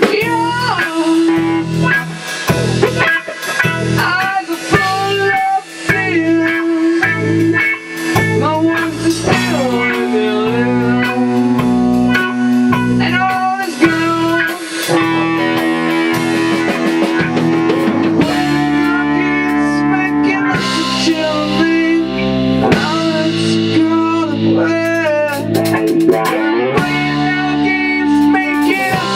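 Rock band playing an instrumental stretch: guitar over bass and a drum kit.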